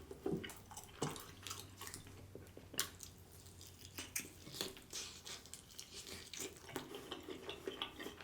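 Close-miked eating sounds: irregular wet mouth clicks and smacks from chewing barbecue chicken wings.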